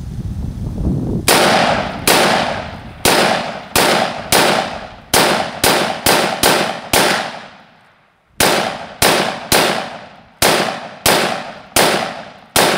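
AR-15 rifle in 5.56 mm firing semi-automatic: about eighteen shots in two quick strings, roughly one to two a second, with a pause of about a second and a half between them. Each shot dies away over about half a second.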